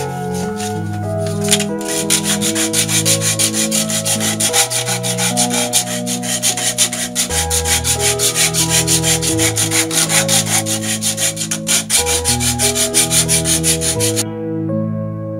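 A strip of torn sanding belt pulled back and forth over the corner of a squared wooden board, rasping in quick, even strokes as it breaks the sharp edge. The strokes start about two seconds in and stop near the end, with piano music playing underneath.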